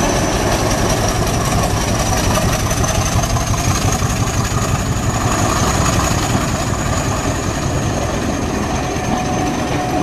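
Class 50 diesel locomotive's English Electric V16 engine working as it hauls its train away, with the coaches rolling past close by, a continuous heavy rumble with a steady high whine over it.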